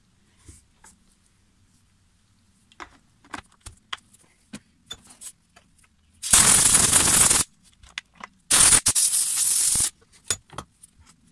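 Two blasts of compressed air from a blowgun, each a little over a second long, hissing as they clean muck out of a chainsaw's oil filler area, with light clicks and taps of the plastic oil cap being handled around them.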